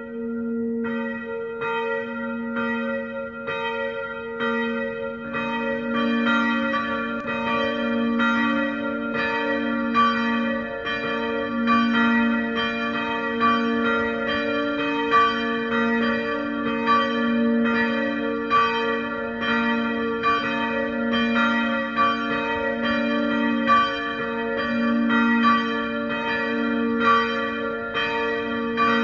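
Two swinging church bells of a small chapel ringing together. At first one bell strikes evenly, about three strokes every two seconds; the second bell joins about five seconds in, and from then on their strokes overlap in a steady peal.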